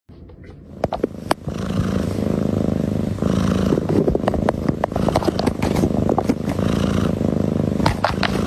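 A cat purring loudly and steadily close up, with scattered sharp crackles and scratches from the cardboard box around it. The purr sets in about one and a half seconds in.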